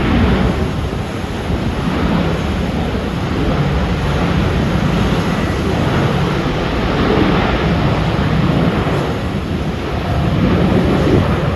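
Air New Zealand Boeing 787-9's Rolls-Royce Trent 1000 jet engines: a loud, steady rumble with a deep low end that swells and eases a little as the airliner moves along the runway.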